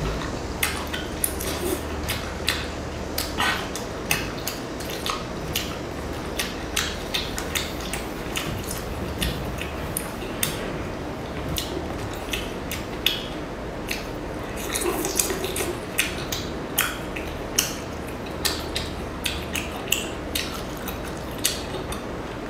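Close-miked eating sounds: a person chewing and smacking on sauced prawns, with irregular sharp wet clicks about once or twice a second over a low hum.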